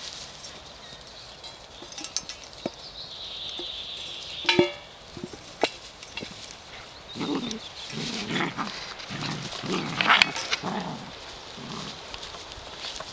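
Gordon Setter puppies play-fighting: a run of short growls and yaps from about seven seconds in. Before that, a single ringing knock about four and a half seconds in.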